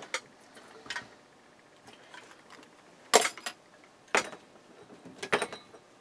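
Metal microwave oven parts handled on a workbench: a few separate sharp clicks and clunks, the loudest about three seconds in and another a second later.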